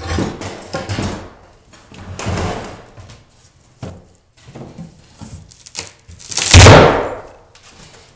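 Crowbar levering glued and ring-shank-nailed particle board underlayment up off a plywood subfloor: several smaller knocks and scrapes, then about six and a half seconds in a loud crack as a section of the board breaks loose.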